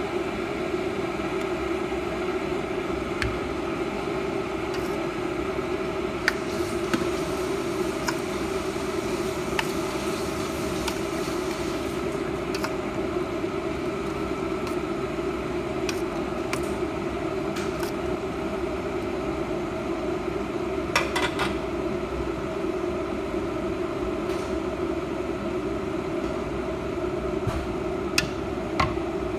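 Steady machine hum with a strong low tone, with scattered light clicks and scrapes of a metal spoon against a stainless steel bowl as a creamy fruit salad is stirred.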